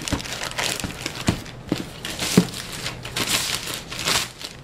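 Plastic shipping mailer bag crinkling and rustling as it is handled and pulled open, with a few knocks, the loudest about two and a half seconds in.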